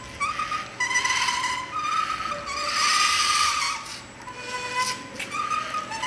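LEGO Mindstorms NXT robot's servo motors and gear trains whining as it drives and turns, in stretches of about a second, each at a slightly different pitch.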